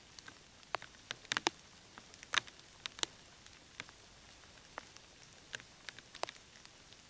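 Scattered water drops tapping close to the microphone: irregular light ticks, one to three a second and unevenly spaced, over a steady faint hiss.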